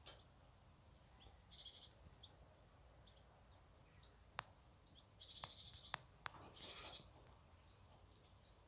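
Near silence, broken by three short, faint, high rasping buzzes and about four sharp clicks around the middle.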